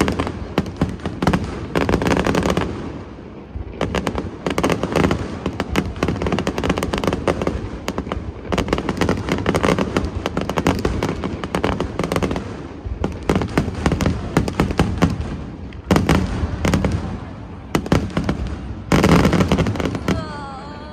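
Fireworks going off in rapid succession: a dense, continuous run of booms and crackles, with especially loud bursts about two seconds in and again near the end.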